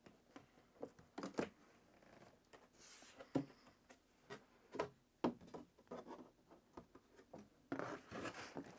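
A cardboard box being opened and handled: scattered taps and knocks, with a short rustling scrape near the end.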